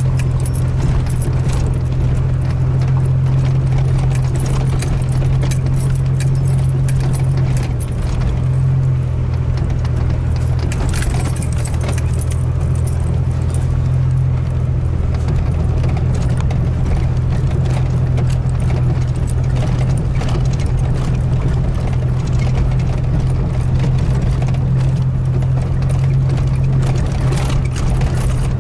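Cab interior of a Chevrolet S-10 Blazer driving on a dirt track: a steady low engine hum with frequent light rattles and jangles as the truck bumps along.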